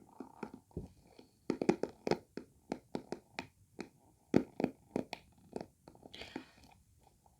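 Irregular light tapping and knocking on an object, a few taps a second, as ASMR tapping triggers.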